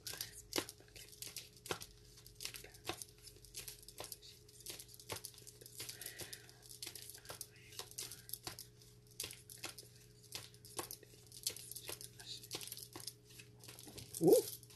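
Tarot cards being shuffled by hand: a run of irregular light clicks and papery rustles, with one louder short sound near the end.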